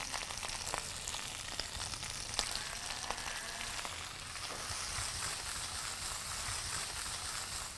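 Kangkong (water spinach) leaves sizzling in a little hot vegetable oil in a sauté pan as they wilt, with a few light clicks scattered through.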